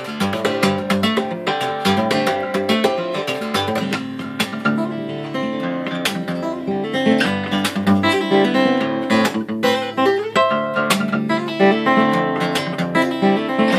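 Solo steel-string acoustic guitar played fingerstyle, with notes tapped on the fretboard by both hands near the start, then fingerpicked and strummed. Dense runs of notes with many sharp, percussive attacks.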